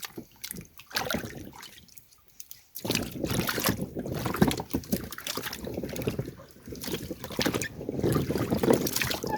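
Freshly dug carrots being swished by hand in a tub of water to rinse the soil off: a few splashes at first, then continuous splashing and sloshing from about three seconds in.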